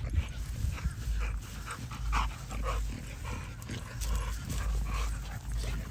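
Bully-breed puppies panting and giving short, scattered high-pitched vocal sounds while running loose, over a low rumble of wind on the microphone.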